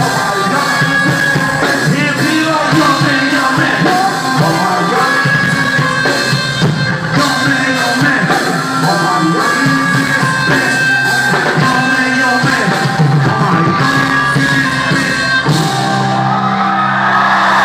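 Live hip-hop concert music played loud through a theatre's PA, heard from within the audience, with singing and shouting over the beat. About fifteen seconds in, the beat gives way to held low notes.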